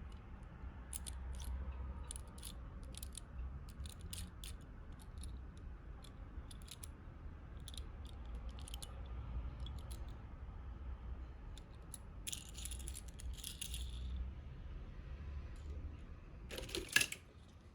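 Small die-cast toy cars clicking and clinking against each other as they are picked through in a box, in scattered light taps with a busier clatter late on and one louder clack near the end.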